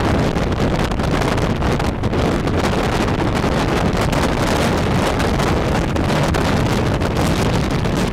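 Strong wind buffeting the microphone: a loud, unbroken rush, heaviest in the low end, that never lets up.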